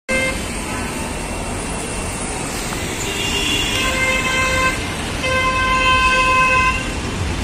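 Busy road traffic rumbling steadily, with vehicle horns honking: a short toot at the start, then two long honks about three and five seconds in.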